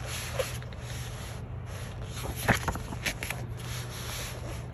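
Pages of a printed book being turned by hand: short papery rustles and rubs, the loudest about two and a half seconds in.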